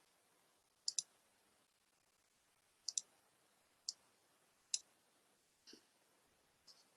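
Sharp clicks from computer use picked up over a quiet line: a quick double click about a second in, another about three seconds in, then two single clicks. Two fainter clicks follow near the end.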